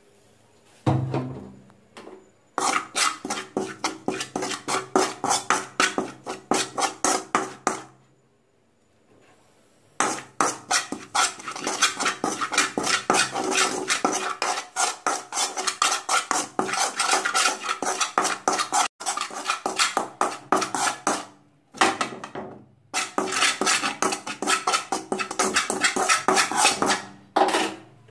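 A utensil stirring and scraping chilli and spice powder as it dry-fries in a metal pan, in quick regular strokes of about four a second. The stirring pauses twice.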